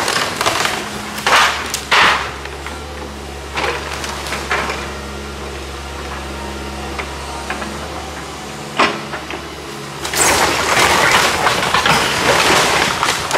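Diesel excavator engine running steadily while its bucket tears into the wreckage of a wood-frame cottage. Sharp cracks of splintering wood and debris come a few times in the first half, then a long stretch of crunching and breaking near the end.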